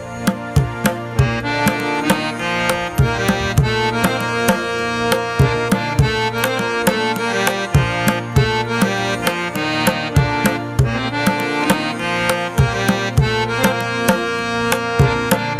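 Instrumental background music: steady hand-drum strokes under a held reed-instrument melody.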